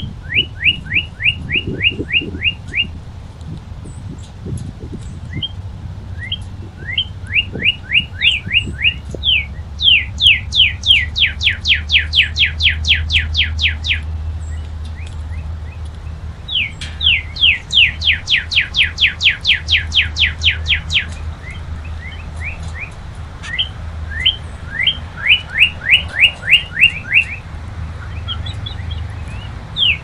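Northern cardinal singing: about six phrases of repeated, downslurred whistled notes, some slow and some in fast runs of a dozen or more, with short pauses between phrases. A low steady hum lies underneath.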